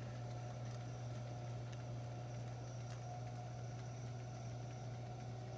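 Electric pottery wheel running at a steady speed: a constant low hum from its motor, with faint higher steady tones over it.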